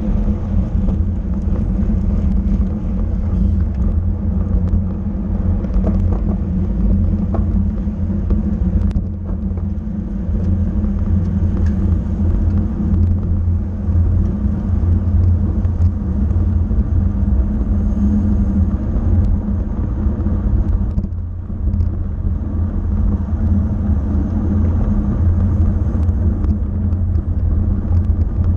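Steady wind rumble and road noise on a racing bicycle's onboard camera at race speed, easing briefly twice.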